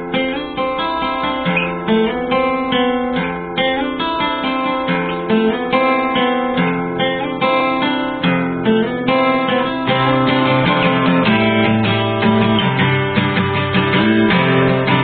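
Background music of plucked and strummed acoustic guitar, a steady run of picked notes; it grows fuller and a little louder with lower notes about ten seconds in.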